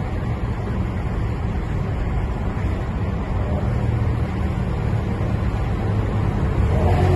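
BMW M3 E92's 4.0-litre V8 running at a steady low drone with road noise while cruising; near the end the engine note rises and grows louder as it starts to accelerate.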